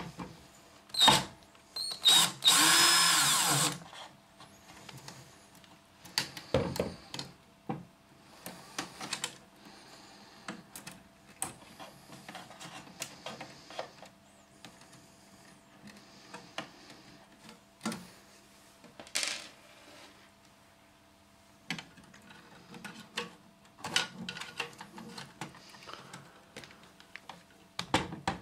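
Electric screwdriver or drill whining for about a second and a half to back out screws from the card printer's casing, with a shorter run later, between which come many small clicks and knocks of screws and panel parts being handled.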